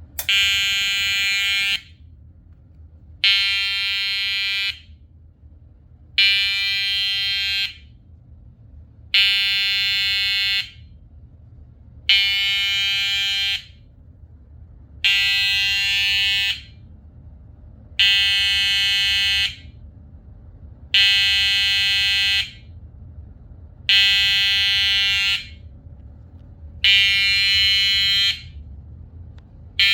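Edwards 882-2B electronic fire alarm horn sounding in a very slow march time, 20 beats a minute: ten blasts of a steady tone, each about a second and a half long, starting every three seconds.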